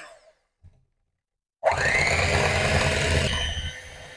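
Electric hand mixer with steel beaters, beating eggs and sugar in a ceramic bowl. It cuts off at the start and is silent for over a second. Then the motor spins up with a rising whine and runs steadily, going quieter near the end.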